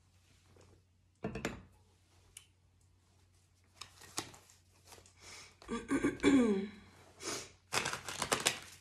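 A deck of tarot cards shuffled by hand: quick papery clicks, scattered at first and then a dense run in the last second or so. A short wordless vocal sound, falling in pitch, comes about six seconds in.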